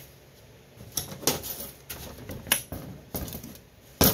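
Metal clinks and knocks as pliers and a sealed sheet-metal Bulgarian ammunition tin are handled on a work surface: a run of sharp knocks after a quiet first second, then one loud knock near the end.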